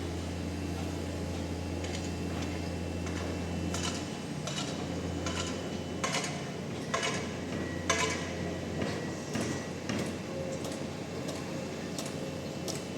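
A heavy machine's engine runs with a steady low hum that drops away about four seconds in. After that comes a series of sharp, irregular metallic clanks and knocks, as from steel parts or materials being handled.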